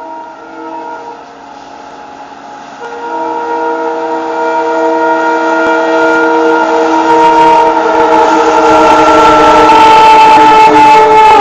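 WDP4 diesel locomotive's horn sounding a long, multi-tone blast. It is faint at first and much louder from about three seconds in. The rumble of the passing train builds underneath, and the whole sound grows steadily louder toward the end.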